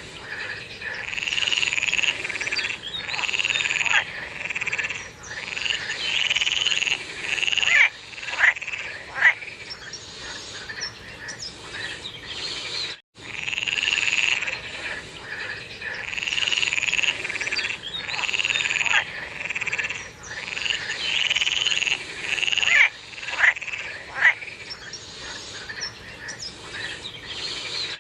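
A chorus of frogs calling, overlapping croaking calls repeating every second or so, with a few short sharp calls standing out twice. The sound cuts out briefly about halfway through.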